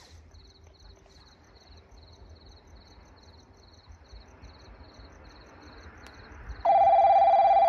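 Insects chirping in a steady pulsing rhythm over a faint low rumble. Near the end a loud, steady electronic ringing tone starts suddenly: a station's automatic train-approach warning, signalling that a train is about to arrive.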